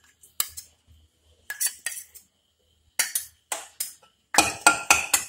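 Metal utensils clinking and scraping: a spoon knocking butter out of a glass into a non-stick pan, then a steel ladle tapping and scraping in the pan. The knocks come in short groups with gaps between, the loudest group near the end.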